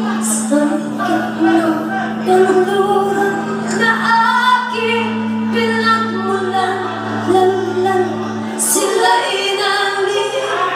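Live band music: two female singers on handheld microphones, backed by keyboard, electric guitar and bass, with long held low notes under the vocal line.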